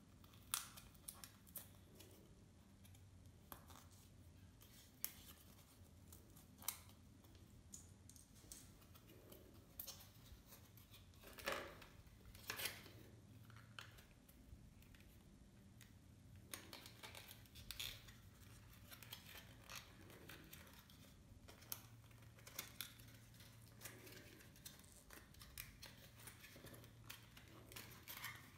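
Quiet handling of foam-board 3D puzzle pieces: scattered sharp clicks and snaps as tabs are pushed into slots and card edges rub. The loudest crackles come a little before halfway.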